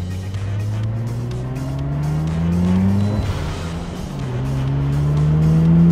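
Mazda RX-7 FC3S's 13B twin-rotor rotary engine heard from inside the cabin, accelerating hard with its pitch climbing. About three seconds in it breaks off for a gear change, then climbs again in the next gear.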